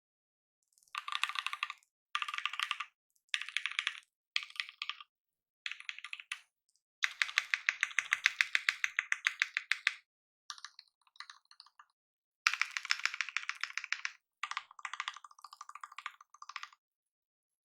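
Typing on a custom mechanical keyboard with lubed Gateron Ink linear switches on a polycarbonate plate. Rapid keystrokes come in short bursts with pauses between them, and the longest, fastest run falls near the middle.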